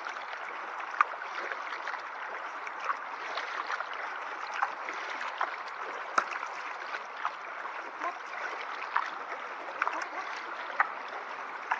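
Kayak paddle working the water: a steady trickle of dripping and splashing, with sharp little splashes about once a second as the blades dip in and out.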